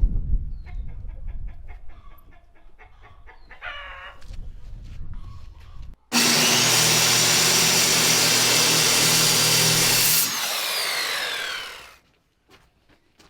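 Electric power saw cutting wood: after a few faint bird calls and ticks, the saw starts about six seconds in, runs loud and steady through the cut for about four seconds, then is released and its pitch falls as the blade spins down.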